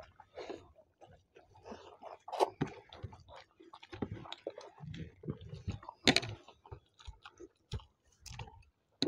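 Chewing and mouth sounds of people eating egg curry with rice by hand: irregular smacks and clicks, a few louder ones about two and a half and six seconds in.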